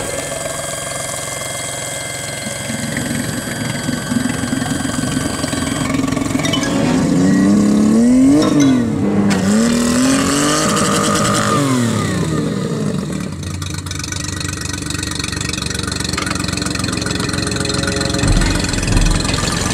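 Mercury 40 outboard motor running steadily, then revving up and down several times midway as its propeller chops into a pumpkin tied beneath it, churning the water, before settling back to a steady run.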